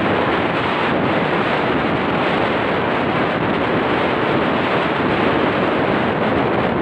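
Steady rush of wind on the microphone mixed with the wash of small waves breaking along a sandy beach.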